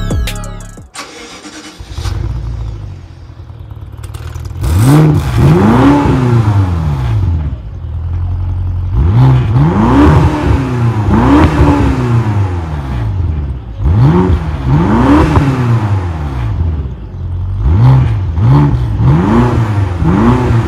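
BMW X5 M's 4.4-litre twin-turbo V8 (S63), heard at its quad exhausts, idling and then repeatedly revved in quick throttle blips. The blips come in groups of two to four, each rising in pitch and dropping back to idle.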